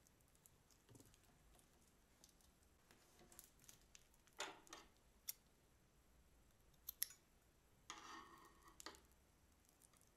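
Faint crinkling of a plastic piping bag full of clear glitter slime being handled, with a sharp snip of scissors cutting off its tip about seven seconds in, then a short rustle as the bag is squeezed.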